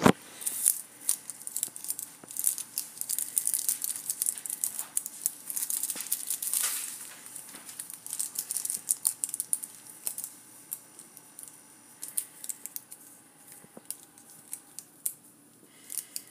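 Irregular small clicks and crinkly rustling, busiest in the first half and thinning out toward the end.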